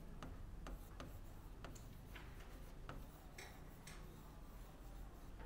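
Faint, irregular ticks of a pen tapping and sliding on an interactive display screen while a word is handwritten, about two ticks a second, over a low steady room hum.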